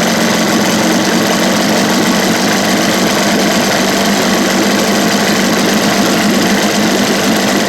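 1977 Evinrude 15 hp two-cylinder two-stroke outboard running steadily while it warms up after a choked cold start.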